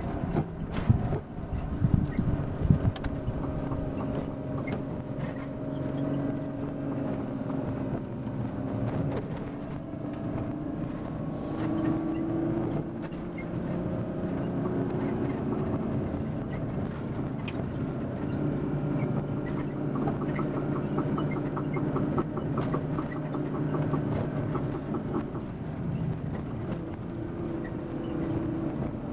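2002 Volkswagen Eurovan heard from inside the cab while driving: steady engine and road noise, with a few loud knocks about one to three seconds in. These are the van's unexplained knocking noise, its cause unknown.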